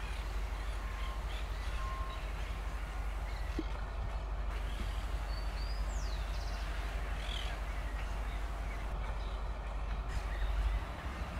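CRRC CDD6A1 diesel-electric locomotive running at low speed as it approaches, a steady low engine rumble. Birds chirp briefly over it a few times.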